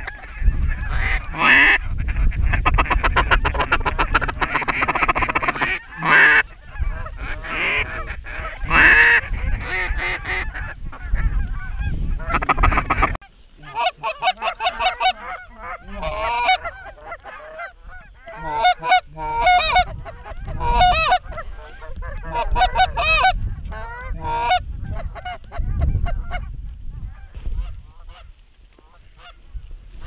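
Geese honking, many calls overlapping over a low rumble at first. About 13 seconds in the sound cuts to a quieter background with fewer, clearer honks from a small group.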